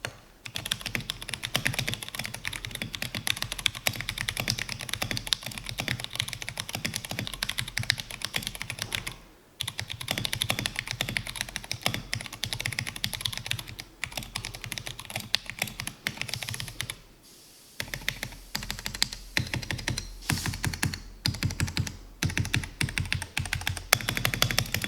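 Typing on a mechanical keyboard with a walnut base: a rapid run of key clacks, broken by brief pauses about nine and seventeen seconds in. The unmodded stabilizers are not that good and the keys sound a little scratchy. The clacks echo off the room's high ceiling and concrete floor.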